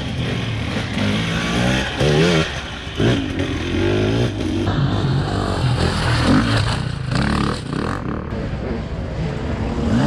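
Enduro dirt bike engines revving hard, their pitch rising and falling again and again under throttle, as bike after bike climbs and rides the race course.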